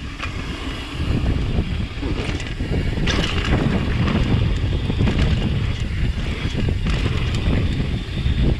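Wind buffeting the microphone of a mountain bike riding fast down a dirt trail, with the rattle and small knocks of the bike and tyres over the ground. A brief louder hiss comes about three seconds in.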